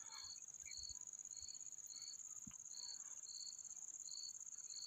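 Faint insect chorus: a steady high trill with a shorter chirp repeating about twice a second.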